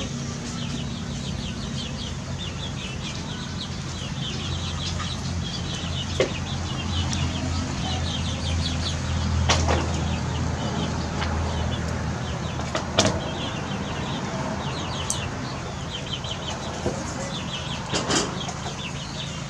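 Background birds chirping in quick, short high notes, with some clucking, over a steady low hum. A few sharp clicks stand out now and then.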